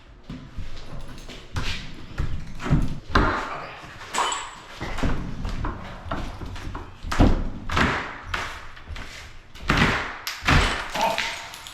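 Hammer blows and pry-bar work tearing out a shower wall during demolition: a string of irregular knocks and cracks, several of them loud, with scraping in between.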